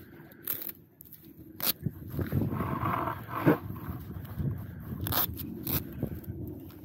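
Honda Grom's single-cylinder engine, fitted with an aftermarket cam and a 2 Brothers Racing exhaust, idling with a rough, uneven exhaust note. It gets louder about two seconds in, with a brief rev in the middle. A few sharp clicks are heard throughout.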